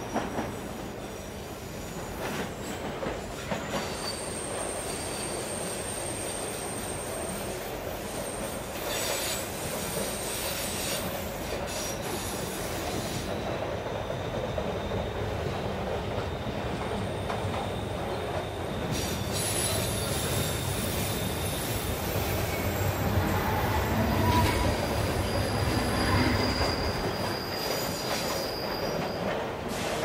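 A train running on rails: a steady rumble with thin, high wheel squeals that come and go. The rumble grows louder about two-thirds of the way through.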